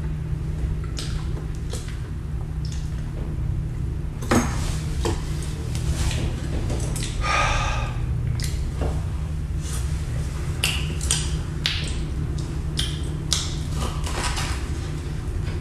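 Chopsticks and a ketchup bottle clinking and scraping on a steel plate while eating: scattered light clicks and knocks over a steady low hum.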